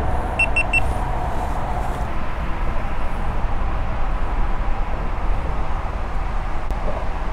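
Steady low rumbling outdoor noise with no distinct events, with three quick high electronic beeps about half a second in.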